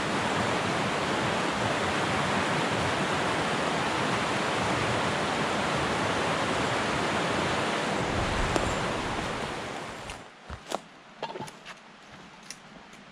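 A river rushing with a steady, loud roar that fades about ten seconds in. A few light clicks follow, like footsteps on the dirt trail.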